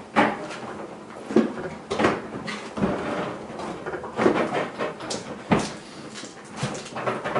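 A dishwasher being shoved slowly into its cabinet opening: irregular knocks, bumps and scraping of the metal unit against the cabinet and floor, a sharp knock every second or so.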